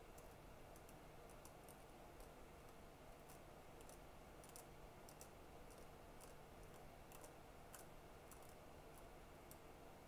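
Near silence with faint, irregular light clicks, roughly two a second, over a low steady hum.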